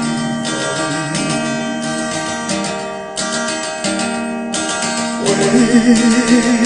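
Acoustic guitar strummed as song accompaniment. About five seconds in, a man's voice joins, singing one long held note with vibrato.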